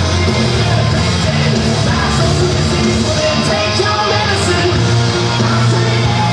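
Loud rock entrance music with a singer, playing steadily.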